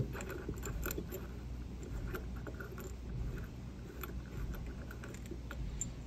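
Faint small clicks and scraping of a metal beer nut being unscrewed by hand from the threaded plastic shank of an empty keg detector, over a low steady hum.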